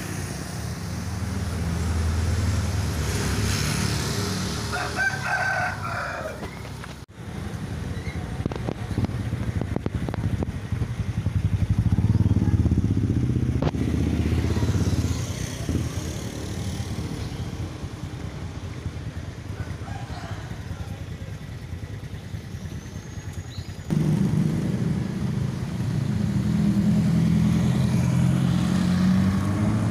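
Street traffic, mostly motorcycles and cars passing with their engines running. A rooster crows a few seconds in.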